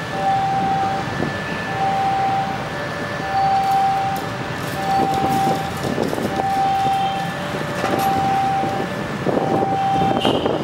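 An electronic warning alarm alternating a longer higher tone with a shorter lower one, the pair repeating about once a second, over the steady rumble of a diesel locomotive. Gusts of wind hit the microphone near the end.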